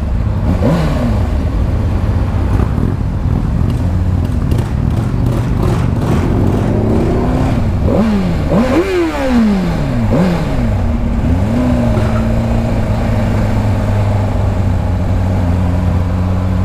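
Sport motorcycle engine on the move. About eight seconds in, the revs rise and drop sharply several times as it accelerates through the gears, then settle into a steady drone.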